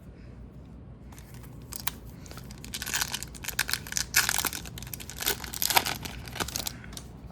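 Plastic foil wrapper of a hockey card pack being torn open and crinkled: a dense run of crackles and rustling that starts about two seconds in and dies down near the end.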